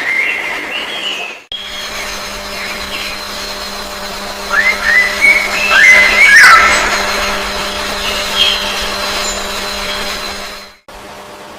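Bird chirps over a steady mechanical hum with a high whine. The hum starts abruptly about a second and a half in and cuts off suddenly near the end. A cluster of rising and falling chirps is loudest a little past the middle.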